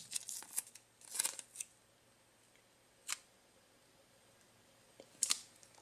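Blue masking tape being handled and pressed down by hand on a 3D printer's bed: faint short crackles and rubs in small clusters, with a single one about three seconds in and quiet gaps between.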